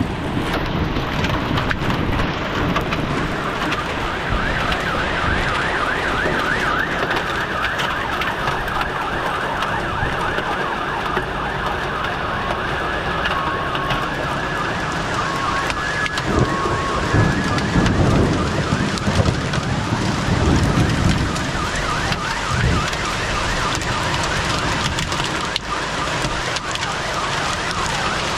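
Hail and heavy rain beating down in a steady wash of noise while car alarms go off: a warbling alarm from about four seconds in, then alternating two-pitch beeps around the middle, with a low rumble a little later.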